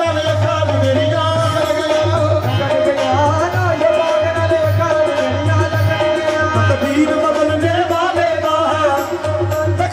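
Live qawwali music: a melody played over steady held tones, driven by a regular tabla beat.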